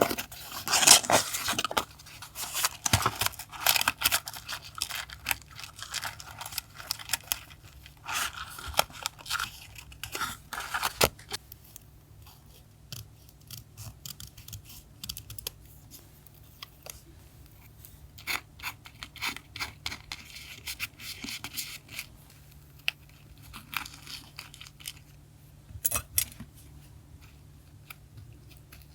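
Paper being handled for collage: close, crackly rustling and tearing of paper for about the first ten seconds, then only scattered light taps and clicks.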